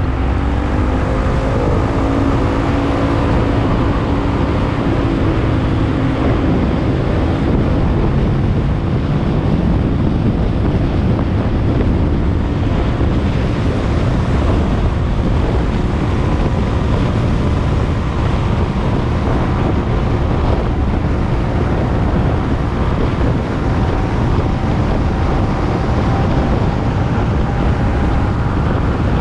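Motorcycle riding in traffic, with wind rushing over the camera microphone. The engine's note rises over the first few seconds as it accelerates, then holds steady.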